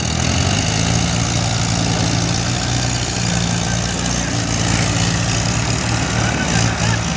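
Diesel tractor engines of an Eicher 485 and a Mahindra Arjun Novo running steadily and low while the Eicher tows the Mahindra, which is stuck in mud.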